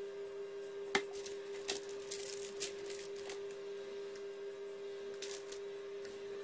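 A few light clicks and taps of glass ramekins being handled on a kitchen counter, the sharpest about a second in, over a steady hum.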